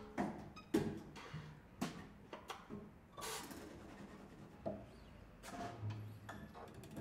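Sparse, quiet jazz improvisation by a quartet of drum kit, double bass, saxophone and upright piano: scattered drum and cymbal strikes, with a few short low notes.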